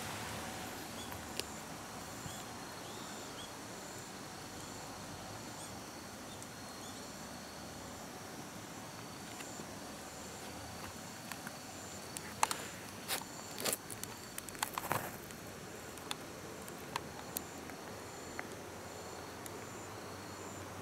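Insects singing steadily, a high continuous trill with a second, higher note pulsing evenly. A short cluster of sharp clicks and scuffs comes a little past halfway through.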